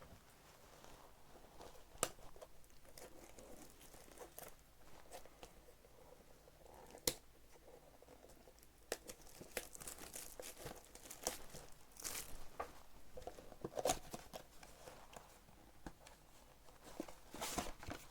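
Packaging of trading-card boxes and packs being torn and crinkled open by hand, with scattered sharp clicks and taps. The crackling gets busier about halfway through.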